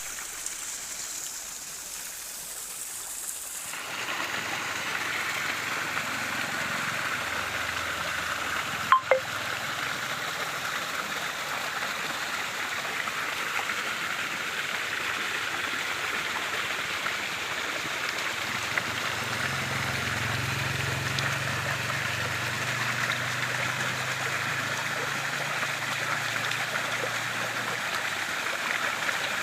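Stream water flowing steadily. For the first four seconds there is only a softer, high hiss, then the rushing water comes in and holds. There is a sharp double click about nine seconds in.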